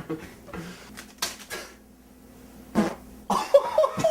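Human farts: two short, noisy blasts, about a second in and near three seconds in, the second louder.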